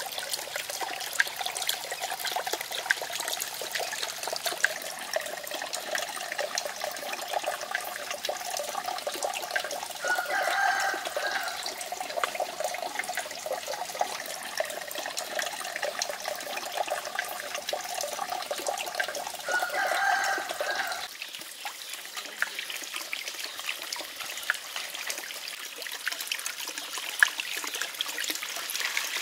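Water trickling and running steadily, with two calls about a second long, near ten and twenty seconds in. The water sound changes and thins about two-thirds of the way through.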